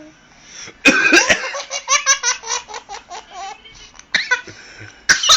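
A small child laughs hard in rapid repeated bursts, set off by their father's coughing. Sharp cough-like onsets come about a second in and again near the end.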